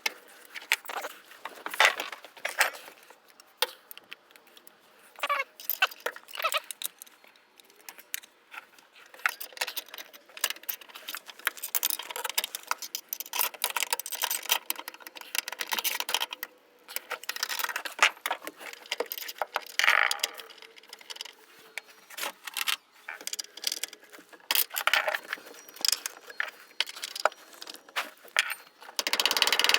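Irregular metallic clinking and rattling of hand tools and parts, a steady run of small clicks and jangles with no engine running.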